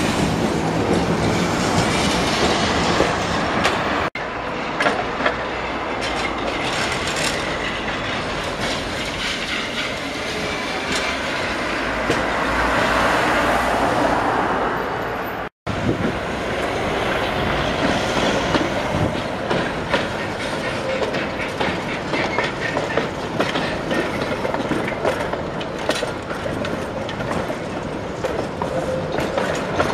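Electric street trams running past close by on street track, their steel wheels clattering over the rails with a continuous rumble. The sound drops out for an instant twice, about four seconds in and about halfway through.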